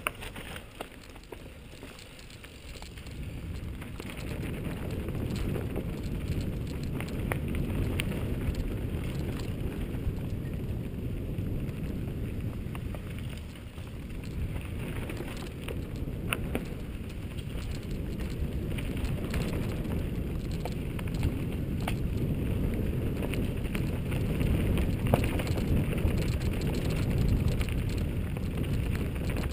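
Mountain bike riding down a dirt singletrack, heard from a helmet camera: a steady low rush of wind on the microphone, with tyres crunching on dirt and scattered clicks and rattles from the bike. It grows louder about three seconds in.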